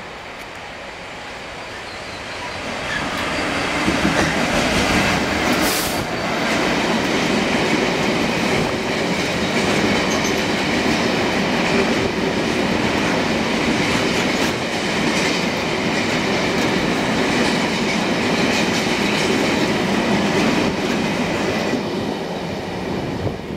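Freight train running through a station past the platform: noise builds as it approaches, then a long rake of open box wagons passes close by, with wheels running over the rails. There is a brief loud rush about six seconds in, and the sound falls away as the last wagons clear near the end.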